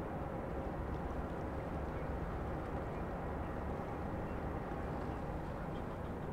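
Steady low rumble of ship engines across the harbour, from a large crude oil tanker under way with its tug, with a faint hum that fades out early on.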